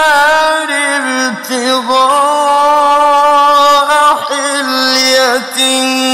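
A man's voice chanting Qur'anic recitation in the drawn-out melodic tajweed style, holding long ornamented notes that waver and bend in pitch, with a brief break about four seconds in before the next phrase.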